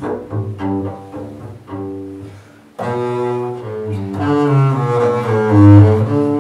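Three-string double bass played solo with a bow, a run of quickly changing notes. The line fades almost to nothing about two and a half seconds in, then comes back louder and fuller.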